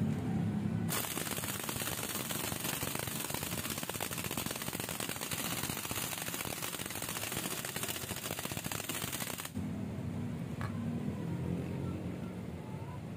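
Rapid mechanical rattling, dense and loud, starting about a second in and cutting off suddenly after about eight seconds, followed by a quieter low running sound.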